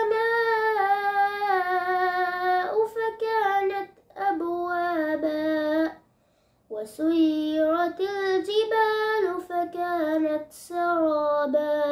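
A boy chanting Quran recitation in Arabic, in long, melodic, held phrases, with a short pause for breath about six seconds in.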